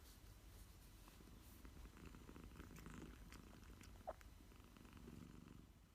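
A sleeping cat purring softly, a low rumble that swells and eases with its breathing, with one short higher-pitched sound about four seconds in.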